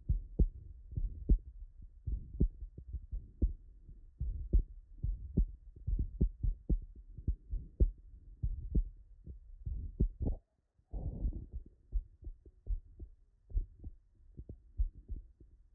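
Heart sounds of a patient with metallic (mechanical) aortic and mitral valve replacements, heard through a digital stethoscope: a steady run of sharp valve clicks with every beat. A short, noisier burst comes about eleven seconds in.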